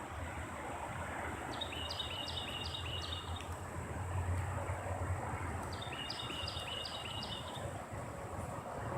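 A songbird singing a quick phrase of about five repeated notes, twice, over a steady low rumble of wind or distant traffic.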